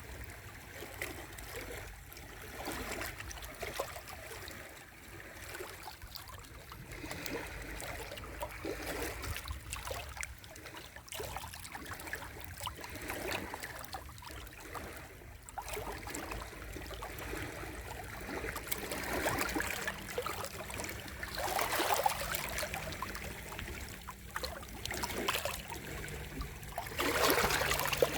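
Small sea waves lapping and washing in a steady, uneven rush of water. The wash swells louder about twenty seconds in and again near the end.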